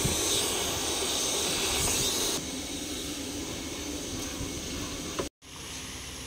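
Steady hissing background noise of a workshop. It becomes quieter about two seconds in and briefly cuts out about five seconds in, then carries on with a faint steady hum.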